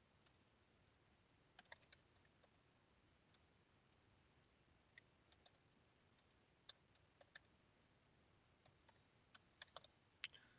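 Faint, scattered keystrokes on a computer keyboard: single taps and short runs of clicks with pauses between them, a small burst about two seconds in and another just before the end.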